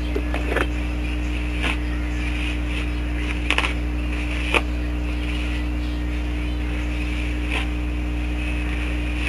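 Steady low electrical hum of the recording, with a few short clicks and rustles from the hair being handled; the sharpest click comes about four and a half seconds in.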